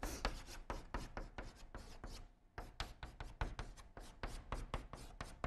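Chalk tapping and scratching on a blackboard as characters are written: a quick run of short, sharp taps, fairly quiet, pausing briefly a little past two seconds in.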